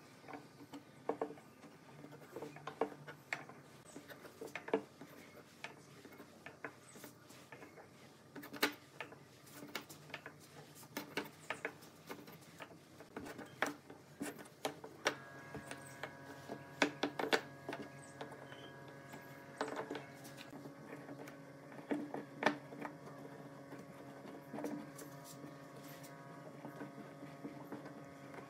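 Light, irregular wooden taps and clicks as strips of a glued-up board are knocked into line and steel pipe clamps are handled. About halfway through, a faint steady hum of several tones comes in under the taps.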